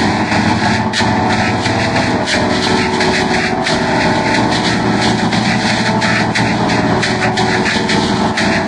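Many copies of a Fisher-Price Laugh & Learn puppy toy's voice and music layered together and distorted by audio effects into a loud, steady, dense drone of many held pitches, with a few short clicks.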